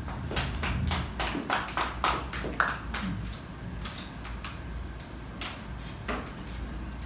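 A run of irregular sharp clicks and taps, several a second for the first three seconds, then fewer and fainter, over a low room hum.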